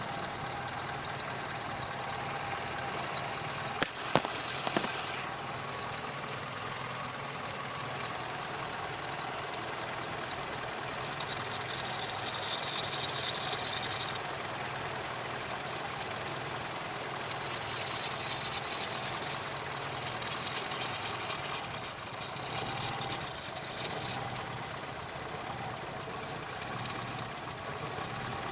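Daewoo Lanos engine idling with the alternator belt making a loud high squeal and rustle under the hood. It stops suddenly about halfway through, and a few short bursts of high hiss follow as belt conditioner is sprayed on the belt. The engine then runs more quietly.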